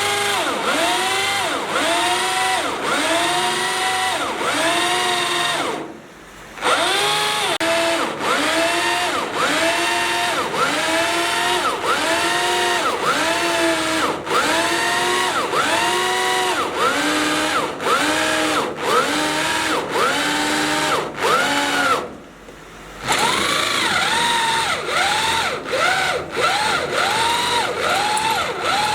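Electric power drill drilling into steel, its motor whine rising and falling in pitch about one and a half times a second as the bit bites and frees. It stops briefly twice, about six seconds in and again about twenty-two seconds in.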